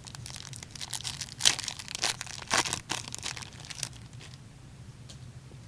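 Foil wrapper of a pack of hockey trading cards being torn open and crinkled, a burst of irregular crackling for about three and a half seconds that dies away near the end.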